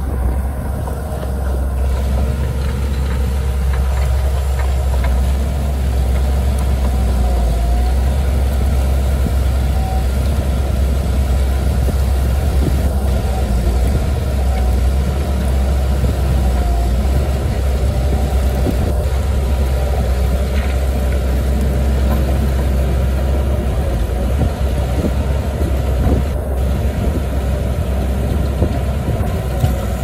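Bulldozer's diesel engine running steadily, its sound mostly deep and low.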